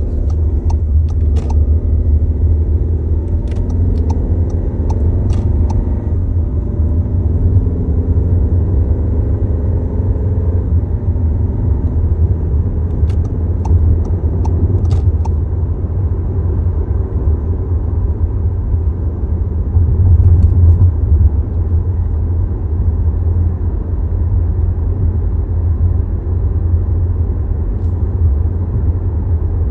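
Steady low rumble and droning vibration from a 2022 Volkswagen Tiguan, the vibration noise that appears when its start-stop system is active. Scattered light clicks come in the first few seconds and again about halfway through.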